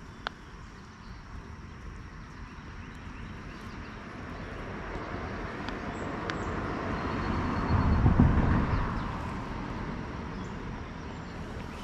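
A road vehicle passing by: a steady noise that slowly grows louder, peaks about eight seconds in, then fades away.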